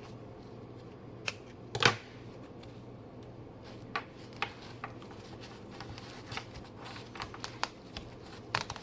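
Scattered light clicks and rustles of a potted plant and its packaging being handled during unboxing, with one sharper knock about two seconds in.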